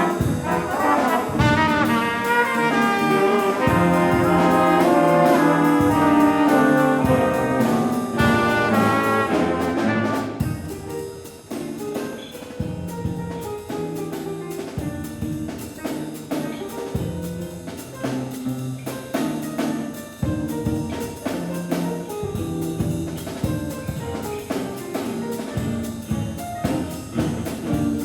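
A jazz band plays, led by brass (trumpets and trombones). The full ensemble plays loudly for about the first ten seconds, then drops to a quieter, thinner passage.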